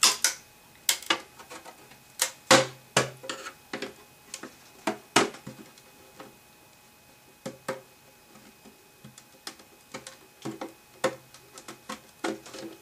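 A small pick-style screwdriver prying and picking at drilled-out copper rivets on a plastic control-board cover, giving irregular sharp clicks and taps, a few of them loud, with quieter stretches between.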